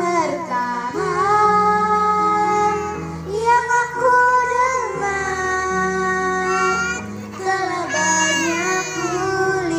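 A young girl singing a song into a microphone over backing music, amplified through loudspeakers.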